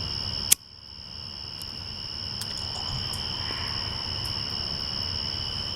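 Smoke detector sounding a steady, high-pitched electronic tone without a break, with one sharp click about half a second in; the detector is malfunctioning.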